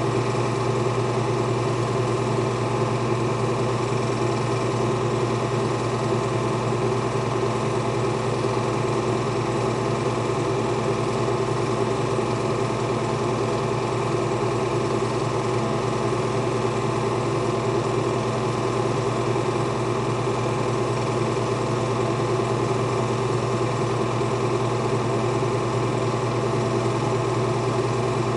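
Film projector running with a steady, unchanging mechanical hum.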